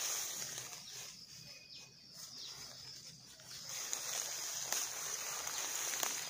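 Dry bamboo leaves and weed stems rustling and crackling as they are pulled up and gathered by hand, louder in the second half with a couple of sharp snaps near the end, over a steady high buzz of insects.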